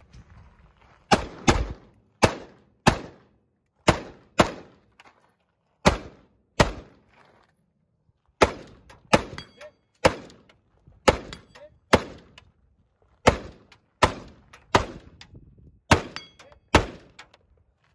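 Rifle gunfire from an AR-style rifle: about twenty sharp shots, mostly in quick pairs about half a second apart, with short gaps between pairs as the shooter moves between targets.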